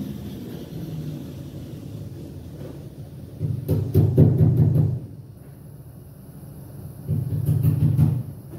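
Two short bursts of arc welding on a steel body patch panel, each a second or so of buzzing crackle: the first starts about three and a half seconds in, the second near the end.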